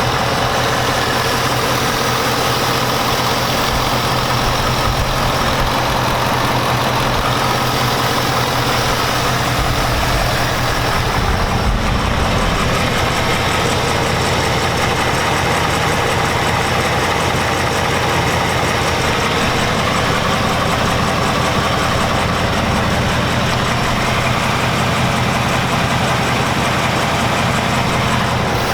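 2019 Ford Mustang GT's 5.0-litre V8 idling steadily, without the typewriter tick, which the owner says cleared after a Rislone oil additive.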